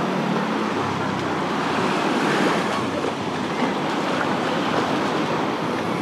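Small waves washing onto a sandy shore: a steady rush of surf. A faint low hum fades out about a second in.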